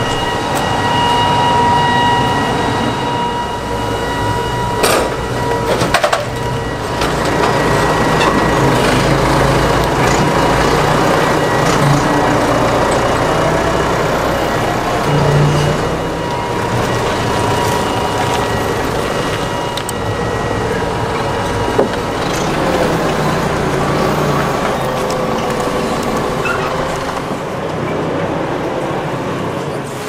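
Heavy steel sliding door of a lumber shed being rolled open along its track, with two sharp metal clanks about five and six seconds in, over continuous loud machinery noise carrying a steady high whine that fades out about two-thirds of the way through.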